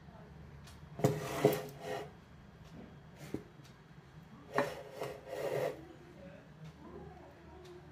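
Two short bouts of rubbing and scraping, about a second in and again around the middle.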